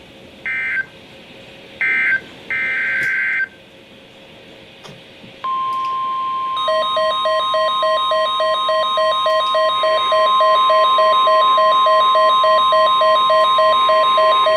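NOAA Weather Radio alert tones. Three short warbling data bursts close one alert, and a longer burst follows. A few seconds in, a steady 1050 Hz warning alarm tone starts and holds for about nine seconds. About a second later a rapidly pulsing beep joins it, at about four pulses a second.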